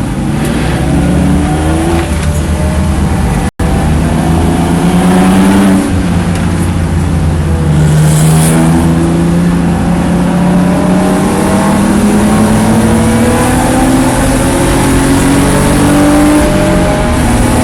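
Race car engine running hard on track, its pitch climbing as it accelerates and dropping back at each upshift, several times over. The sound cuts out for an instant about three and a half seconds in.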